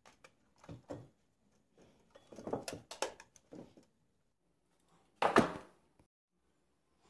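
Clicks and knocks of an old metal folding bellows camera being handled and snapped shut, with a cluster of sharp clicks a little over two seconds in. About five seconds in comes a single louder knock, as the camera is set down on the wooden workbench.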